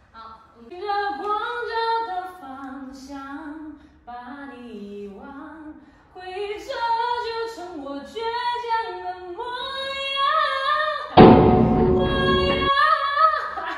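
A woman singing a slow melody with long held notes that glide up and down. About eleven seconds in, a loud burst of noise lasting about a second and a half cuts in over the singing.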